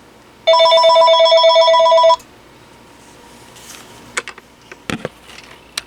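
Panasonic KX-TG6841 DECT 6.0 cordless phone ringing: one burst of its warbling electronic ringtone about a second and a half long. A few sharp clicks follow near the end.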